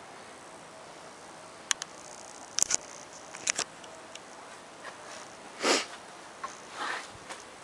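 A few sharp clicks and knocks, then a short sniff about halfway through and a fainter breathy sound a second later.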